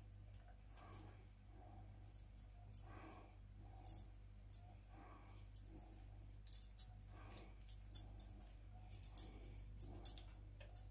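Hands squeezing a lump of freshly churned butter to press out the leftover buttermilk: faint, irregular squishes and drips, a little louder in the second half, over a steady low hum.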